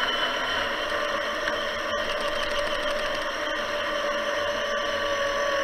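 Traxxas Summit RC truck's electric motor and drivetrain whining at a nearly steady pitch as the truck drives through floodwater, the pitch sinking slightly toward the end.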